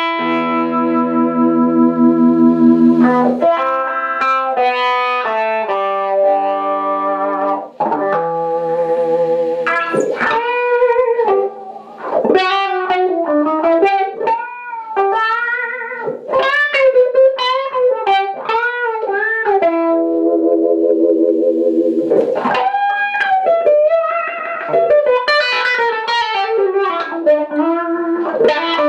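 Electric guitar played through a vintage DeArmond 1802 Weeper wah pedal, with the pedal working. Held chords ring for the first few seconds, then the pedal is rocked back and forth so the tone sweeps up and down again and again, giving the vowel-like wah.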